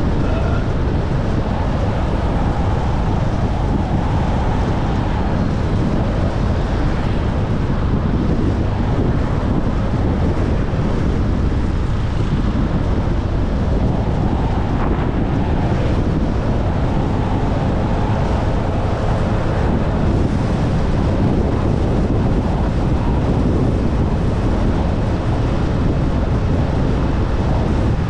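Steady wind rushing over the microphone of a scooter rider's POV camera, with the scooter's engine and tyre noise running underneath.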